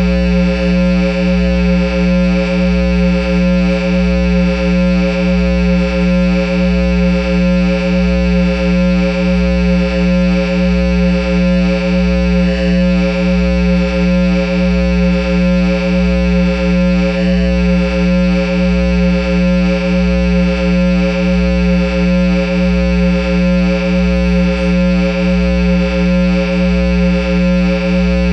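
A Line 6 guitar amplifier putting out a loud, steady electronic drone: a low hum with several held tones above it. The whole sound swells and dips about one and a half times a second.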